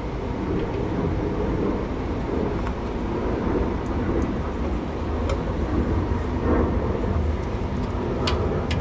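A steady low rumble, with a couple of sharp metallic tool clicks near the end as a breaker bar and socket go onto a brake caliper bracket bolt.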